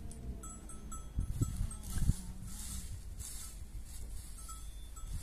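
Livestock bleating, with a few low knocks partway through.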